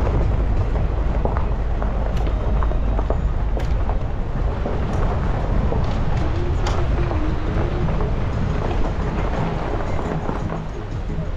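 Vehicle driving on a rough road: a steady low rumble with scattered knocks and rattles.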